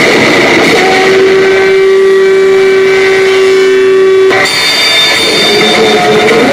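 Loud dramatic sound effects from the show's soundtrack. A rolling crash of thunder fills the first second or so. Then one long, steady horn-like note is held for about three seconds and cuts off abruptly, giving way to a noisier blaring sound with high tones.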